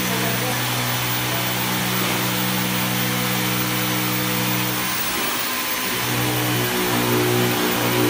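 A machine running with a steady hum over a hiss. About five seconds in the hum shifts to a different pitch, and after that it drops out briefly a few times.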